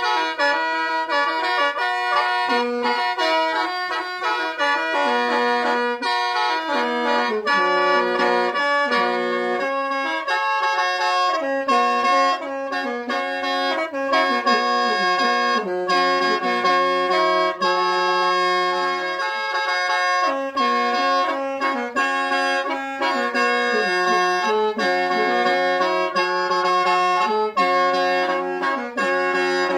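Khaen, the Lao bamboo free-reed mouth organ, played solo: a running melody over steady drone notes that sound throughout.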